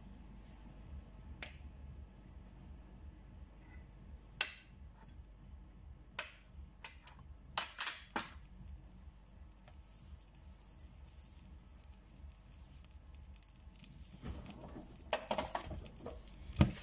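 Butter going into a hot nonstick frying pan: a few light clicks and knocks as the lumps are put in, then the butter starting to sizzle faintly near the end.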